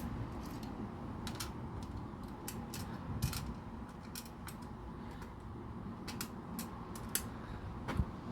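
LEGO plastic bricks and pieces clicking and tapping as they are sorted and pressed together, in irregular sharp clicks over a low steady hum. A slightly heavier knock comes near the end.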